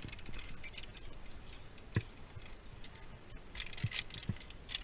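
Metal carabiners and rope-access hardware on a climbing harness clinking and clicking as they are handled, with one sharper knock about two seconds in and a run of light clinks near the end.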